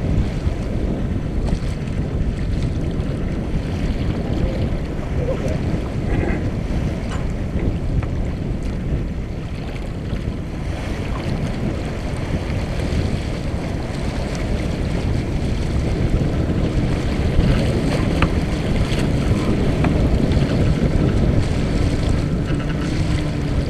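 Wind buffeting the microphone over the steady rush of water along the hull of a Mumm 36 racing sailboat under way, a little louder in the last third.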